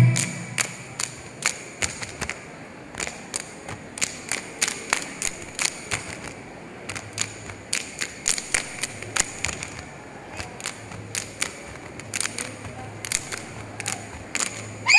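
Scattered sharp clicks and soft knocks, a few a second and irregularly spaced, in a quiet pause of a large hall.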